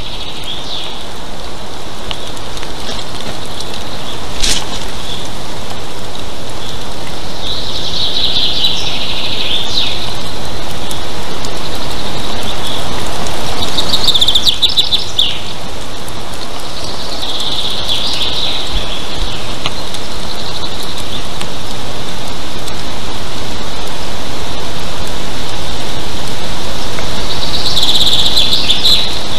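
Golden eagle chick (eaglet) in the nest calling in bursts of high, thin chirping calls, about five times, over a loud steady rushing noise. A single sharp knock comes about four seconds in.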